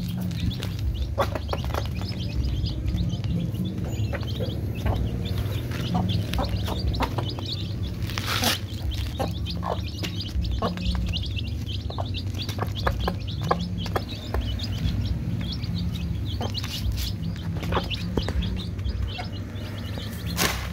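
Young chicks peeping over and over in short high chirps while they peck at feed in a foam tray, with scattered sharp beak taps and a steady low hum underneath.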